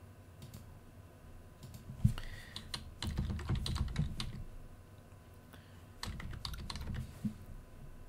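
Computer keyboard typing in two short runs of keystrokes, the first starting about two seconds in with one sharper click, the second about six seconds in.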